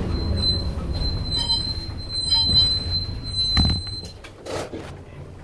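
Brakes of a Bristol RELL6L bus squealing with a steady high whine as the bus pulls up, over the low rumble of its Leyland O.680 diesel. The squeal stops after about four seconds, just after a knock, and the engine rumble quietens.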